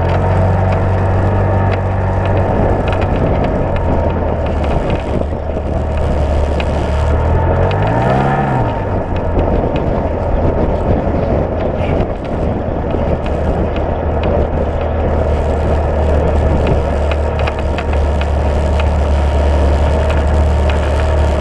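Side-by-side UTV engine running steadily as it drives along a dirt trail, with tyre and chassis rattle noise over it. About eight seconds in, the engine note climbs and drops once in a brief rev.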